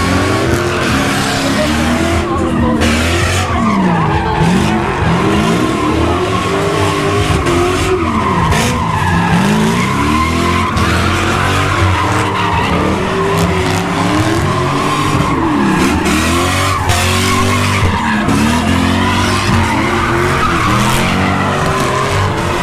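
Drift cars sliding with the tyres screeching and spinning, their engines revving hard, the pitch repeatedly dropping and climbing again as the drivers work the throttle through the slides.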